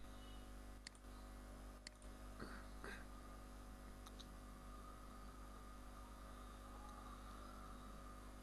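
Near silence over a steady low electrical hum, with about five faint computer mouse clicks, roughly one a second, in the first four seconds.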